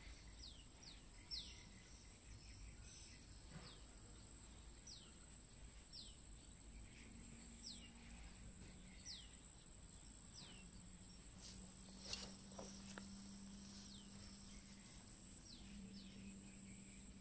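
Quiet rural ambience: a faint, steady, high-pitched insect trill, with scattered short, falling bird chirps about once a second.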